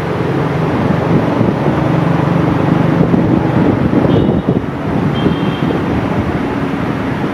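EMD WDP4 diesel locomotive's two-stroke 16-cylinder engine running under power as the train approaches: a steady low drone.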